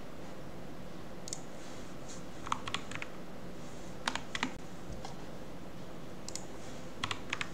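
Typing on a computer keyboard: short clusters of key clicks, a few keystrokes at a time, with pauses between them.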